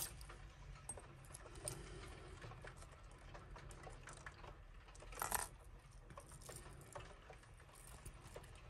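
Costume jewellery being handled: faint small clicks and clinks of beads and metal pieces, with one louder jingle about five seconds in.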